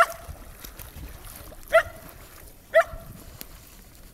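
Shetland sheepdog barking: three short, sharp barks, the second and third about a second apart.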